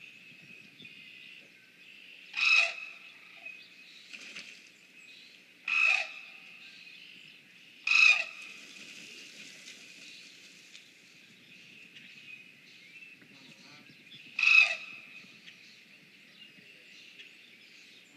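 An animal call, short and harsh, repeated four times at uneven gaps of a few seconds, over a steady high-pitched ringing chorus.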